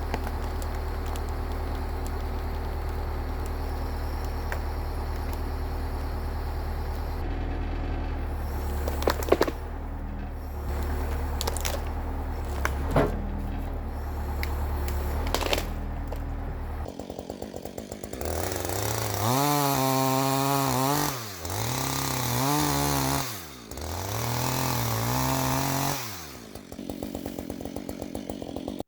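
Chainsaw running at a low idle with a few sharp knocks, then revving high about two-thirds of the way through, its pitch dropping and recovering three times as it cuts.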